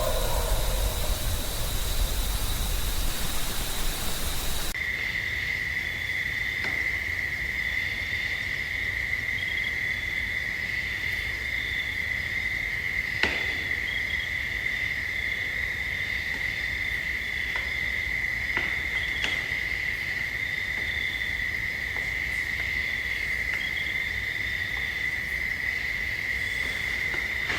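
Insects, crickets going by the sound, trilling in a steady, unbroken chorus at one high pitch, with a few faint clicks. It starts about five seconds in, where an earlier stretch of hiss cuts off abruptly.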